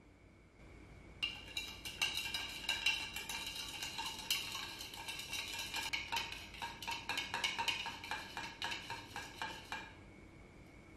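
Metal bar spoon stirring sugar into tea in a measuring cup, clinking and scraping against the cup in quick, ringing ticks. The stirring starts about a second in and stops near the end.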